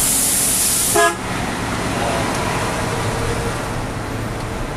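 Heavy truck's engine running steadily, with a loud hiss of air for about the first second and a short horn toot about a second in.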